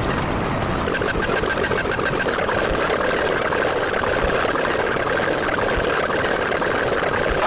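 A motor running steadily, with a faint high whine joining in about a second in.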